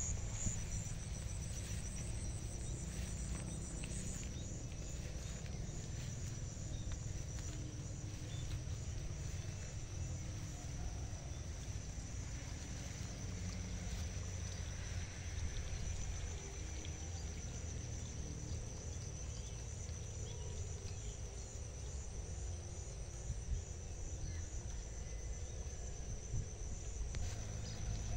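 Insects chirring steadily in a high, rapidly pulsing tone, over a steady low rumble.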